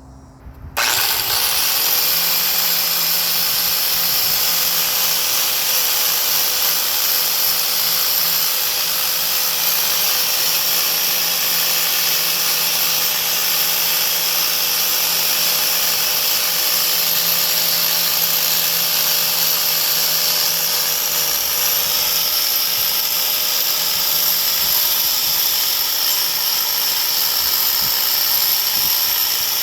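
Grinder with a wire knot wheel starting up about a second in and then running steadily with a high whine, scouring grime off a semi truck wheel hub's mating surface.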